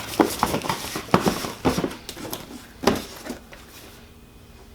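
Parts and plastic packaging being handled during unboxing: irregular rustling, taps and small knocks for the first three seconds, then quieter, with one sharp click near the end.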